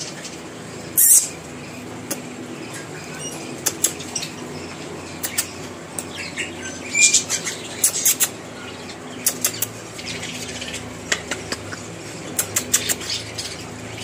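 Scattered close-up clicks, smacks and light feather rustling as an African grey parrot nuzzles against a man's face at the microphone. There is a louder burst about a second in, a cluster of smacks with a short squeak about seven seconds in, and a low steady hum underneath.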